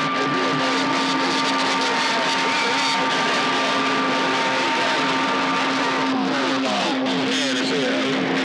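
CB radio receiver on 27.025 MHz giving a steady wash of static with whistling heterodyne tones and garbled, distorted sideband voices buried in the noise. Two of the higher whistles stop about six seconds in, while a lower one carries on.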